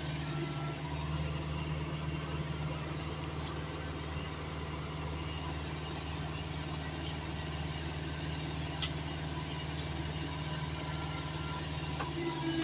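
Diesel engine running steadily at an even pitch. A higher tone joins near the end.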